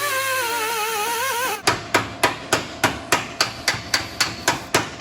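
Hammer blows on sheet steel over a dolly, panel beating dents out of a VS Commodore ute's engine bay: quick, even strikes about three to four a second, starting about a second and a half in. Before the hammering there is a wavering pitched sound that cuts off suddenly.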